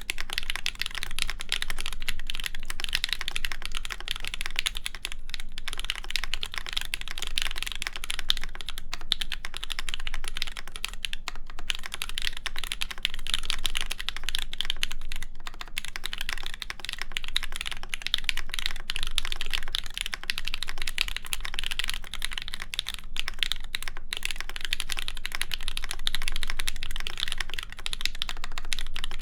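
Continuous fast typing on a mechanical keyboard with lubed linear switches (JWK Ms Piggy), 62 g springs and an aluminum full plate, with GMK keycaps: a steady stream of keystroke clacks with only brief pauses.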